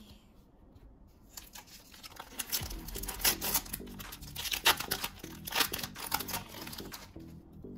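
A baseball card pack's wrapper being torn open and crinkled by hand: a quick run of sharp rips and rustles that starts about a second and a half in, is loudest in the middle, and dies away near the end.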